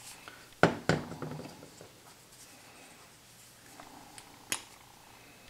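Sharp plastic clicks from a squeeze bottle of epoxy being handled at its nozzle: two close together less than a second in, then one more about four and a half seconds in.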